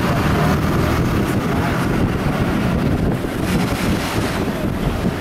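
Steady engine and road noise inside the cabin of a moving vehicle, with a constant low rumble and some wind noise on the microphone.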